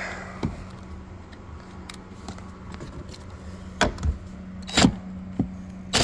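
Scattered metal clicks and knocks as a socket on a cordless driver is fitted onto the seat's 13 mm mounting bolts, over a steady low hum.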